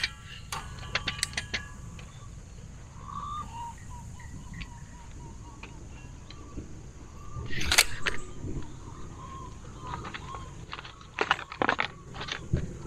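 Clicks and light metallic rattles of a steel tape measure being pulled out, held and let back, with a short loud rasping burst about eight seconds in and another cluster of clicks near the end.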